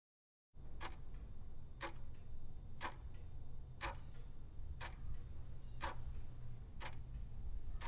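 Clock-ticking sound effect counting down a quiz timer, one sharp tick a second, eight ticks in all, over a low steady hum. It starts about half a second in.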